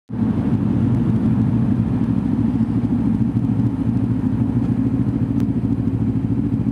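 Kawasaki Ninja 300's parallel-twin engine running steadily while the motorcycle rolls along in traffic.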